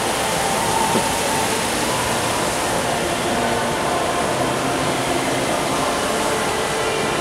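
Steady rushing hiss of water being circulated and spun through tall clear tornado water columns.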